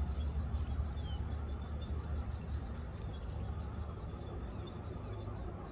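Outdoor background noise: a steady low rumble with faint, thin high chirps.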